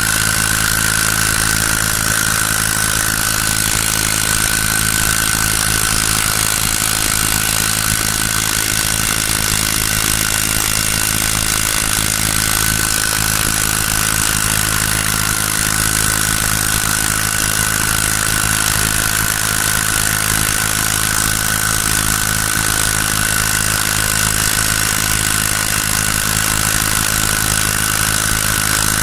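Small grass-cutter engine rigged as a boat motor, running at a steady speed with a constant high whine.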